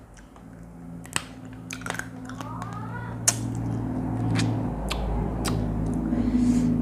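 Eating at a table: a few sharp clicks of cutlery against a dish, with chewing, over a steady low hum that grows louder in the second half.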